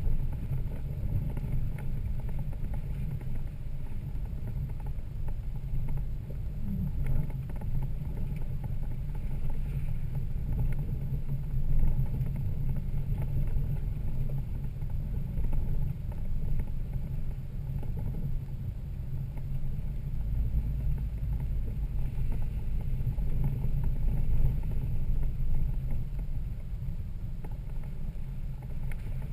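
Toyota Land Cruiser 80 Series engine and drivetrain running as the truck is driven off road: a steady low drone that rises and falls slightly in level.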